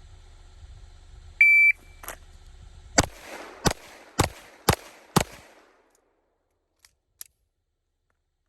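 Shot-timer start beep, then five 9mm pistol shots from a Smith & Wesson M&P 2.0 fired about half a second apart as a drill from the holster, the last shot coming just under four seconds after the beep.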